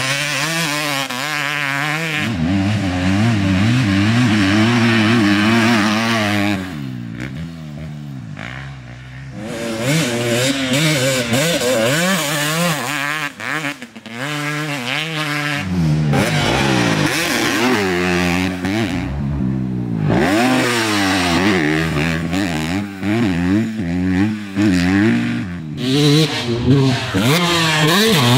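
Motocross dirt bike engine being ridden hard, revving up and down with the throttle and gear changes, easing off twice for a couple of seconds.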